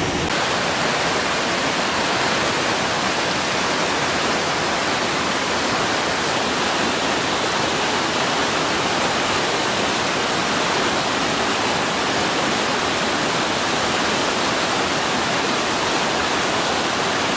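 Small waterfall pouring over rocks: a steady, even rush of water.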